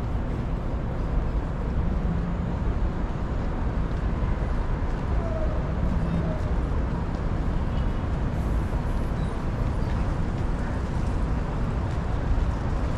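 Steady city-avenue traffic noise: a low, even rumble of cars and buses passing, with a couple of short faint tones about midway through.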